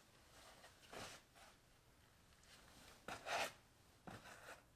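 Faint, irregular scuffing footsteps of hiking shoes on sand and sandstone, the loudest scrape about three seconds in.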